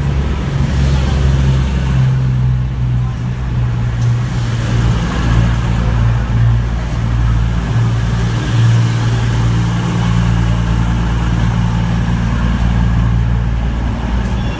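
CrossCountry Voyager diesel multiple unit drawing slowly into the platform, its underfloor diesel engines running with a steady low drone.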